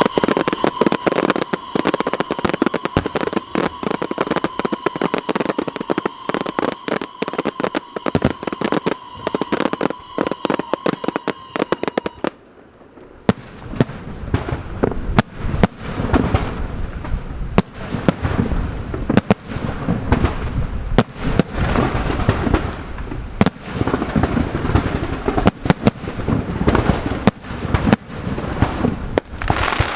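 Aerial fireworks display going off in rapid succession: a dense run of sharp bangs and crackles, with a steady whistle-like tone over the first dozen seconds. The barrage dips briefly about thirteen seconds in, then resumes with deeper booms.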